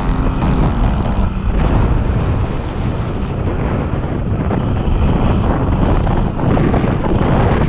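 Wind rushing over the microphone of a camera on a moving motorcycle, with a steady low rumble of the ride underneath.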